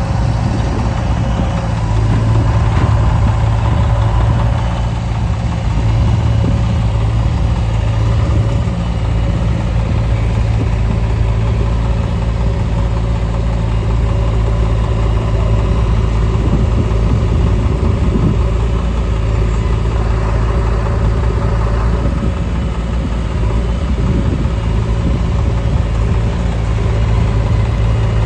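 Diesel engine of a JCB 3DX backhoe loader running steadily while it works loading mud, a constant low hum with a little variation in load.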